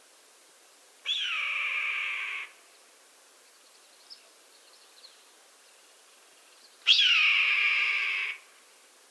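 Red-tailed hawk screaming twice, each a harsh call about a second and a half long that starts high and slides down in pitch, the second one louder.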